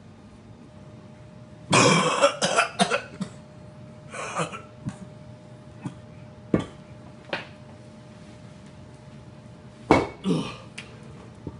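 A man grunting and straining in short, harsh throat bursts, like coughs, as he tries to lift weights. The longest run comes about two seconds in and another near the end, with a few sharp knocks in between over a faint steady hum.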